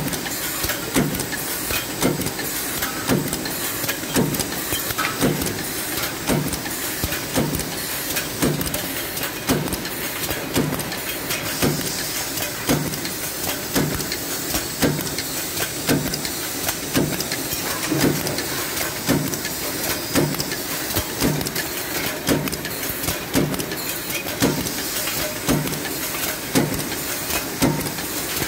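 Automatic tinplate sheet feeder running through its cycle: regular knocks about twice a second over a steady hiss.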